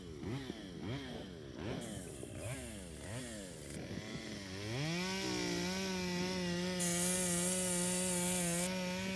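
Chainsaw revving in quick repeated bursts, its pitch rising and falling about twice a second, then climbing about five seconds in to steady high revs that hold.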